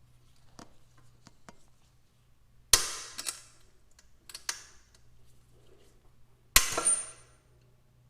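Hand tools knocking against metal: a few light clicks, then four sharp metallic strikes, the last one leaving a high ringing tone for about a second.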